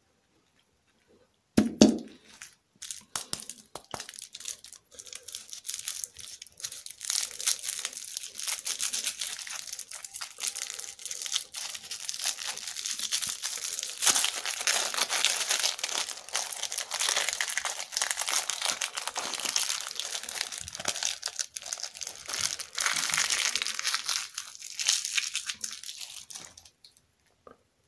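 Plastic lollipop wrapper crinkling and tearing as it is twisted and peeled off a small round lollipop, a dense crackle that grows loudest in the second half and stops about a second before the end. A short thump about two seconds in, the loudest single sound.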